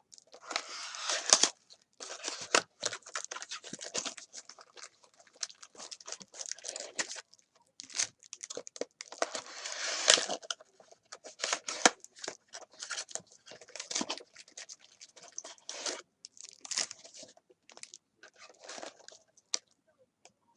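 Trading-card pack wrappers tearing and crinkling as a box of baseball card packs is opened, in a string of short scratchy crackles with a longer tear about halfway through.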